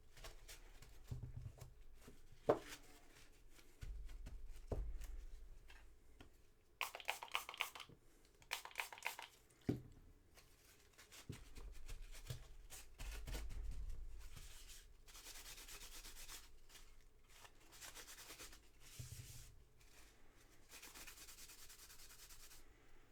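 A small metal part of a jeep headlight switch being scrubbed clean by hand, in short bursts of quick rubbing strokes with pauses between, and a few sharp clicks as the part is handled.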